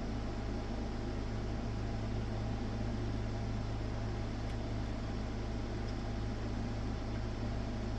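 Steady low mains hum with an even, fan-like hiss over it.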